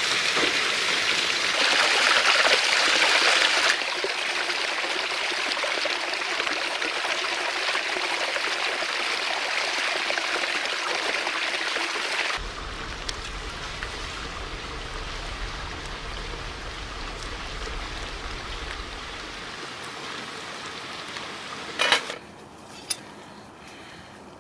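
Water gushing steadily from a ground pipe outlet, a loud rushing hiss. About halfway through it drops suddenly to a quieter hiss with a low rumble. A single sharp knock comes near the end.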